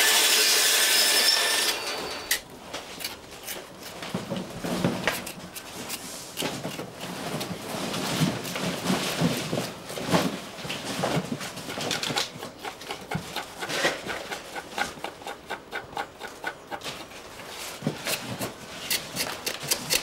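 A band saw running steadily for the first second or so, then cutting off; after that a knife scraping and cutting a shark fin on a wooden board in irregular strokes, which turn into quick regular strokes near the end.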